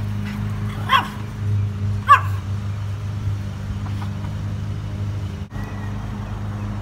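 A dog barks twice, about a second apart, over a steady low hum.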